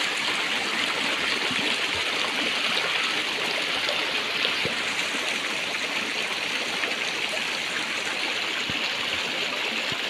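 Shallow stream of rapids rushing and splashing over flat, sloping rock slabs in a steady, even rush.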